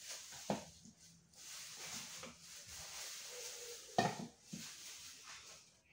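A few short knocks and light scrapes of a cake spatula against a bowl of frosting, over a faint steady low hum.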